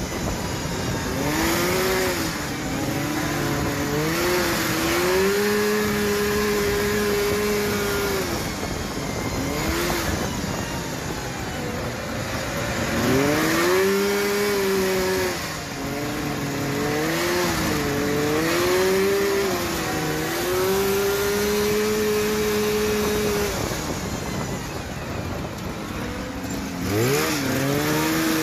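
Off-road vehicle engines running hard on a dirt trail, the engine note climbing and falling with the throttle and holding a steady pitch for a few seconds at a time, over rushing wind and tyre noise.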